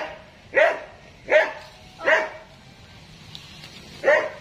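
A dog barking: four sharp barks about three-quarters of a second apart, a pause of nearly two seconds, then one more bark near the end.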